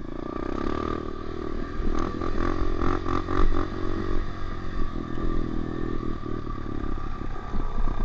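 Dirt bike engine running under throttle while riding, growing louder over the first couple of seconds, with a short run of clattering knocks from the rough ground or bike about two to three and a half seconds in.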